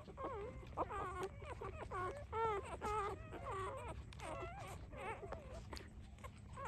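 A litter of newborn puppies squeaking and whimpering while they nurse: many short, wavering high-pitched calls, one after another and sometimes overlapping.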